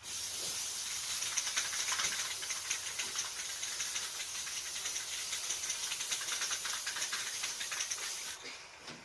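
Aerosol spray paint can spraying in one long continuous hiss, stopping shortly before the end.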